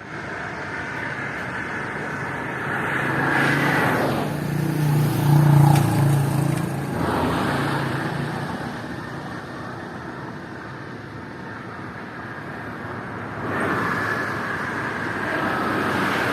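Motorway traffic: vehicles passing one after another over a steady tyre hiss. The loudest passes about five seconds in with a low engine hum, and another swells up near the end.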